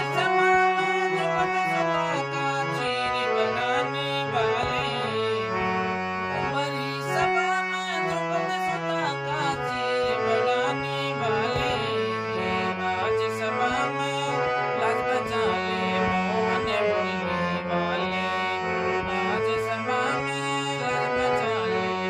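Harmonium played solo: a bhajan tune moving over held low notes, with no dholak or other drum.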